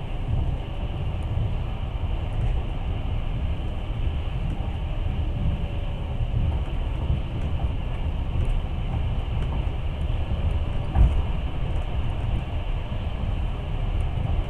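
Passenger train running along the track, heard from on board: a steady low rumble of wheels on rails, with one louder knock about eleven seconds in.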